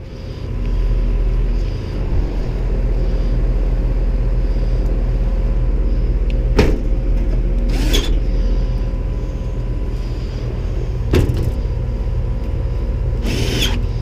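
Central air conditioner's outdoor condensing unit running, its compressor and condenser fan making a steady low hum, the system cooling normally. A cordless drill/driver briefly drives panel screws a few times.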